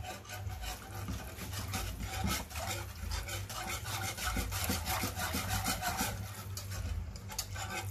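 Wire balloon whisk beating a thick white béchamel sauce in a saucepan, its wires scraping and clicking against the pan in quick repeated strokes, over a low steady hum.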